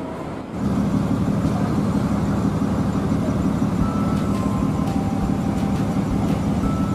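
Large coach bus's diesel engine running with a steady low rumble, starting loud about half a second in.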